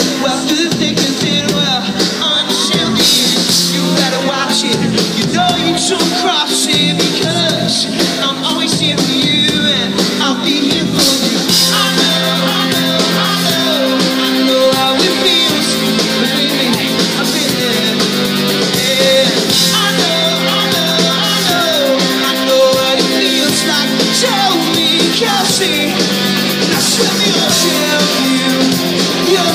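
Live rock band playing loud, with electric guitars, keyboard synth and drums.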